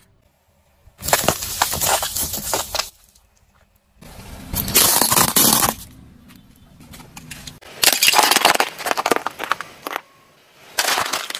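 A car tyre crushing hard plastic toys and a ceramic plate under its weight: four separate bursts of cracking and crunching, with short quiet gaps between them.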